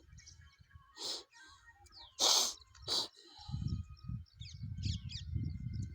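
Small birds chirping, with quick high notes and a few short calls that fall in pitch. Three short loud noise bursts cut across them, the loudest just past two seconds in, and a pulsing low rumble comes in from about halfway through.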